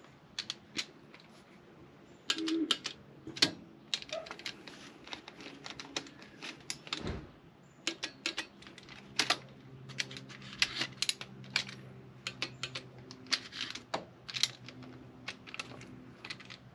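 Ratchet of a click-type torque wrench clicking in quick bursts as it tightens exhaust manifold nuts to a set 23 ft-lb, with a faint steady hum underneath.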